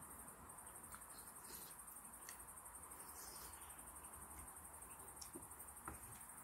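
Crickets chirping faintly in a steady high-pitched trill, with a few light clicks of chopsticks against a metal pot.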